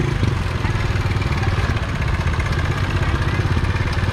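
Motorbike engine running steadily with a rapid, even pulse, over street noise.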